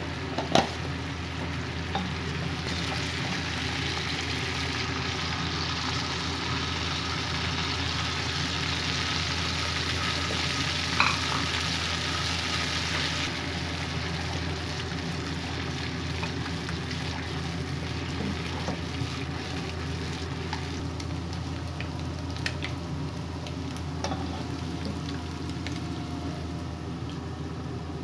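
Beaten egg sizzling as it fries in hot oil in a nonstick pan, stirred and scrambled with a spatula, with a few sharp clicks of the spatula. The sizzle swells about three seconds in and eases off about halfway through, over a steady low hum.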